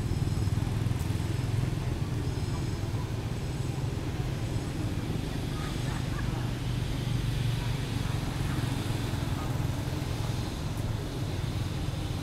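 A steady low rumble like a motor engine running, unchanging throughout.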